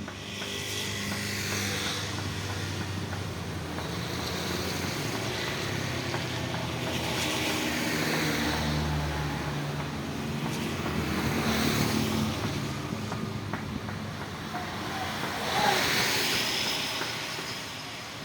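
Motor vehicles passing one after another on a rain-wet road, each a swell of tyre hiss and engine hum that rises and fades, about four passes in all.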